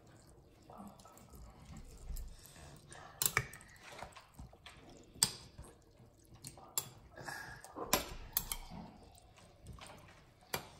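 Metal spoon stirring and pressing chopped vegetables down in vinegar inside a large glass jar: liquid sloshing and dripping, with sharp clinks of the spoon against the glass now and then.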